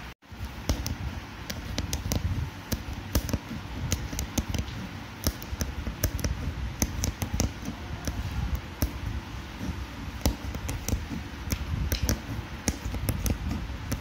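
Hand-embroidery needle punching in and out of fabric stretched taut, making irregular sharp taps and dull thuds several times a second, after a brief gap right at the start.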